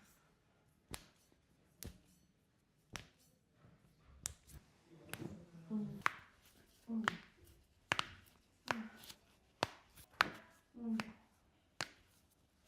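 Sharp slaps or knocks of hands on the body during chiropractic treatment, about one a second. From about five seconds in, short low grunts from a person come between some of them.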